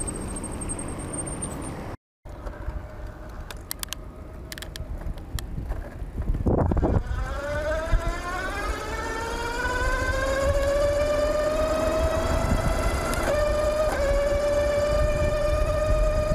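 A 48 V 1000 W mid-drive electric bike motor whining, its pitch rising steadily as the bike accelerates under power, then dipping briefly near the end. Wind rumbles on the microphone underneath.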